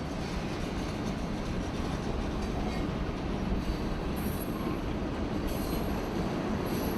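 CSX freight train rolling steadily along the track, a continuous rumble of wheels on rail, with a few brief, faint high squeals in the second half.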